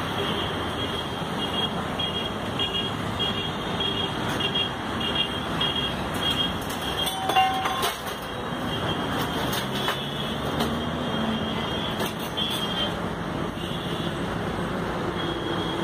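Steady road traffic noise, with a vehicle horn sounding briefly about seven seconds in.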